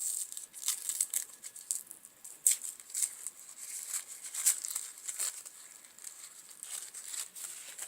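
Irregular rustling and crinkling of packaging as wrapped handmade soap bars are handled and taken out of a box, with sharp little crackles a few times a second.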